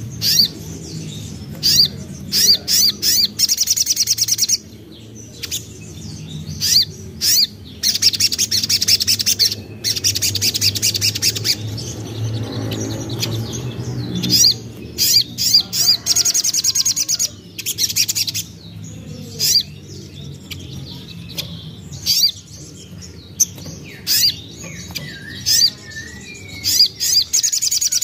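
Crimson sunbird (sogon) singing: sharp, high chips broken by fast, rapid trills of a second or two, repeated again and again.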